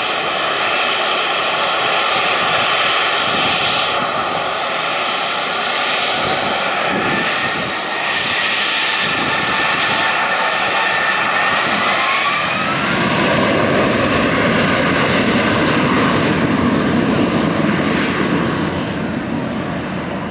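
Boeing 737-800's CFM56-7B turbofan engines running with a steady whine as the jet rolls along the runway. About twelve seconds in, the whine rises in pitch and a deeper rumble builds, as the engines spool up to takeoff thrust.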